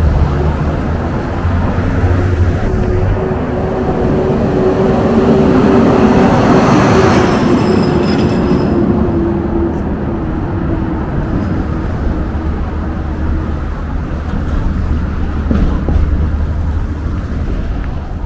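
City street traffic: a heavy vehicle passes close by, its noise swelling to a peak about seven seconds in and then easing. A steady engine hum runs under it.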